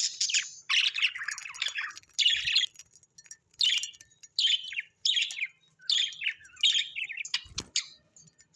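Bird chirping and chattering in a quick series of short bursts, about one or two a second. A soft low thump comes near the end.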